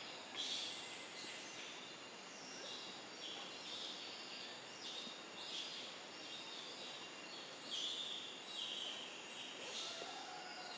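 Outdoor ambience in vegetation: about ten short, high-pitched wildlife calls, each around half a second, scattered over a steady background hiss, with a faint steady high whine underneath.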